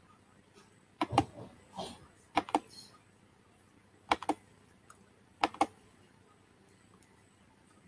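Clicking at a computer: four quick pairs of sharp clicks, a little over a second apart, then quiet.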